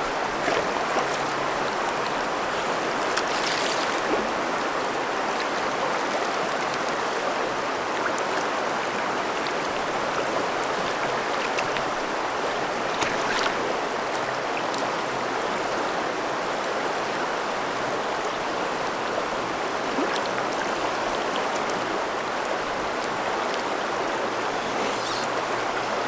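River current rushing steadily, with a few brief, faint sharper sounds over it.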